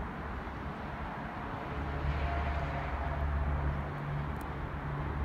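Steady outdoor background noise: a low rumble with a hiss over it, growing a little louder about two seconds in.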